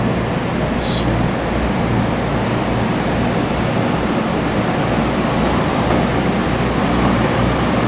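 Steady rumbling ride noise inside a moving Genting Skyway cable-car gondola, with a brief click about a second in.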